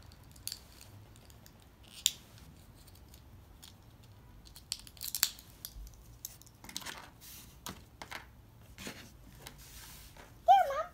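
Scattered snips and clicks with tearing and rustling as plastic toy packaging is cut and pulled open. Near the end there is a short, high, wavering vocal squeal.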